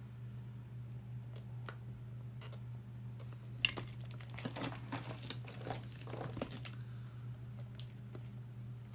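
Crinkling and rustling as items are rummaged through in a box of used toys, densest for about three seconds in the middle, with a few small sharp clicks from toys being handled. A steady low hum runs underneath.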